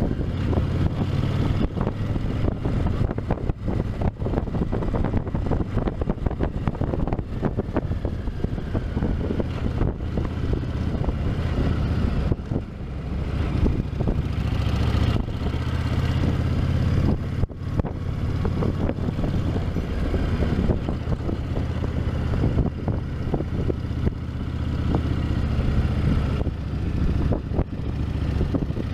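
Honda VTX 1300's liquid-cooled V-twin engine running through its stock exhaust: a steady, deep engine sound with brief dips now and then.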